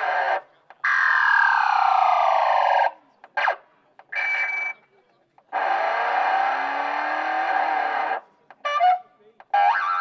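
Novelty sound-effects horn on a 1975 Chevrolet playing a string of electronic effects through its loudspeaker. First comes a long falling whistle lasting about two seconds, then a few short blips, a longer noisy effect starting about five and a half seconds in, and short bursts near the end.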